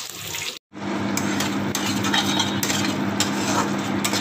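A spatula stirring and scraping thick masala paste around a kadhai as it heats on the stove, with irregular scrapes against the pan over a gentle sizzle and a steady low hum. The sound cuts out completely for a moment just under a second in.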